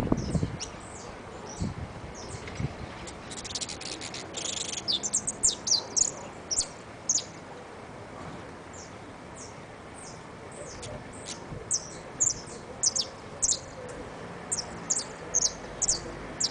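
White saffron finch singing an unsettled, still-forming song: scattered short, sharp high notes in loose groups, with a stretch of buzzy chatter about three to five seconds in.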